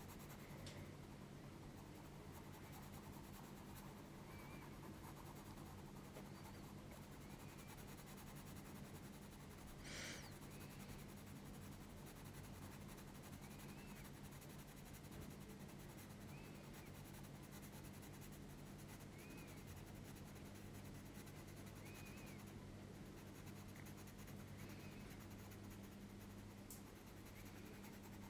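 Faint scratching of a graphite pencil shading on paper, pressed hard to build a dark tone in short repeated strokes, over a low steady hum. One sharper scrape comes about ten seconds in.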